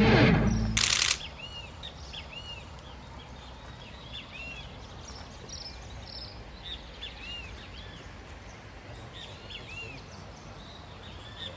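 A music stinger ends with a final hit about a second in. After it, a steady outdoor hiss carries many short, repeated bird chirps.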